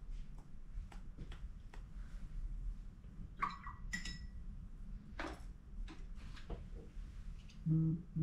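Light scattered taps and clicks of a watercolour brush and palette, with one short ringing ping about four seconds in, and a brief low hum near the end.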